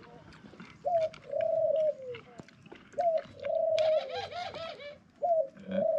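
A dove cooing three times, about two seconds apart; each call is a short rising note followed by a longer coo that falls in pitch. A brief higher sound comes in around four seconds in.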